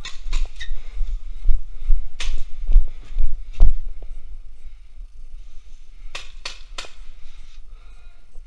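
Paintball markers firing: scattered sharp pops, with a quick run of three about six seconds in. A low rumble of handling or wind noise on the action camera's microphone sits under the first half.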